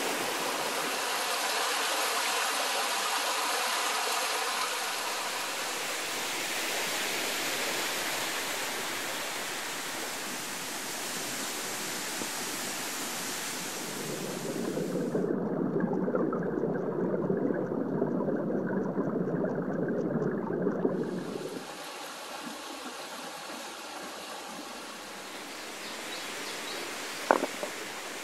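Mountain stream running over rocks, a steady rush of water. For several seconds around the middle the rush turns muffled and deeper. There is a single sharp tap near the end.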